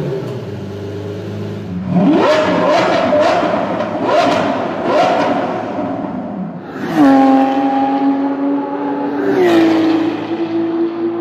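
Supercar engine revving and accelerating: a run of quick rises in pitch in the first half, then a sudden louder climb about seven seconds in to a steady high-revving note that steps up once more.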